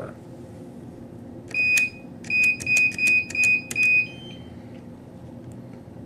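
Camden CM-120 keypad beeping as keys are pressed: one beep, then five short beeps in quick succession, followed by a brief fainter, higher tone. This is the master code being keyed in to put the keypad into programming mode.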